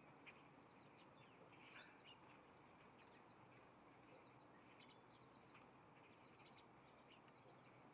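Faint wild birds chirping, with many short high calls scattered throughout over a steady low hiss.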